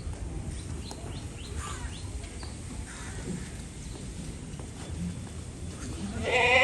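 A goat bleats once, loudly, near the end: one wavering call lasting about a second. Earlier there are a few faint, short, high chirps.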